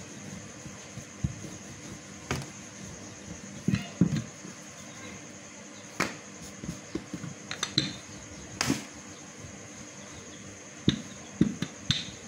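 Wooden rolling pin rolling out paratha dough on a hard countertop: irregular light knocks and taps as the pin rolls, bumps and is set down, over a steady background hum.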